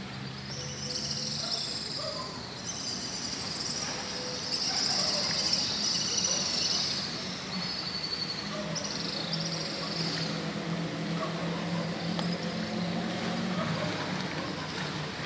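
A chorus of insects chirring high-pitched in pulsing waves from the riverside trees, loudest in the first two-thirds and fading out near the ten-second mark, over a steady low hum.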